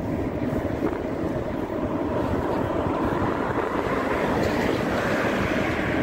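Wind buffeting the microphone over the engine and tyre noise of a two-wheeler riding along a paved road, getting a little louder as it goes.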